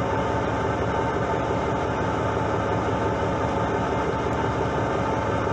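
Fishing boat's engine running steadily, with a constant hum and no change in pitch.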